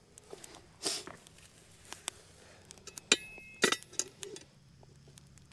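A Dutch oven being handled and set down onto charcoal coals: scattered taps and a brief scrape, then two sharp metallic clinks that ring briefly, about three seconds in.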